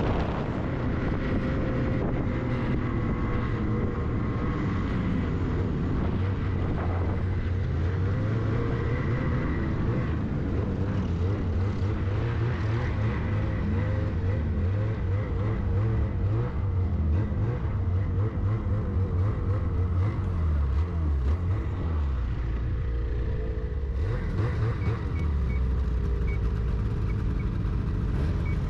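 Snowmobile engine running under a rider on a trail, its pitch rising and falling as the throttle is worked, slowing toward the end as the sled pulls up to the group.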